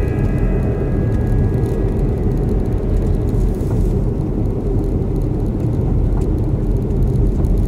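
Steady low rumble of a car on the road, engine and tyre noise as heard inside the cabin.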